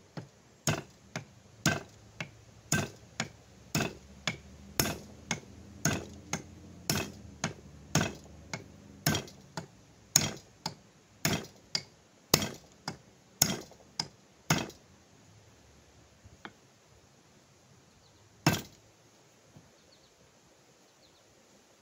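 Repeated blows, about two a second, driving a hatchet head down onto a hand-carved hickory handle to seat it on the handle's shoulder. They stop, and one last blow lands a few seconds later.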